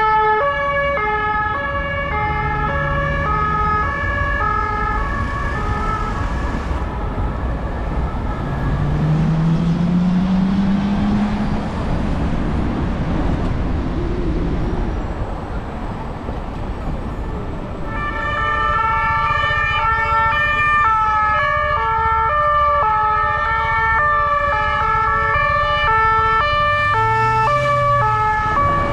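Two-tone emergency-vehicle siren of the French hi-lo kind, switching back and forth between two pitches, heard at the start and again through the last third. In between, street traffic noise and a vehicle's engine rising in pitch as it speeds up.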